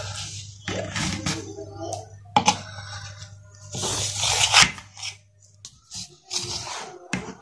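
Knife cutting through firm, set besan barfi and scraping along the bottom of a metal tray in rough strokes, the loudest about four seconds in; the barfi is hard and takes force to cut.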